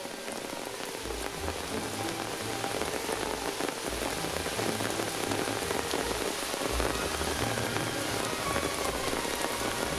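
Steady hiss and rush of heavy rain and rainwater runoff streaming over a sandy path, with irregular low rumbles from about a second in.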